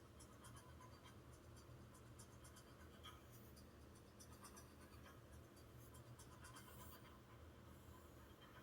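Near silence: faint room tone with a steady low hum and light, irregular scratchy ticks.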